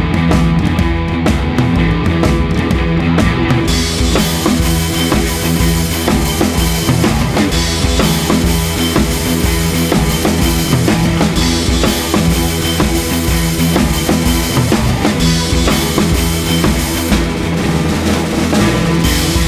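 Background rock music with a steady drum beat; cymbals and a brighter, fuller sound come in about four seconds in.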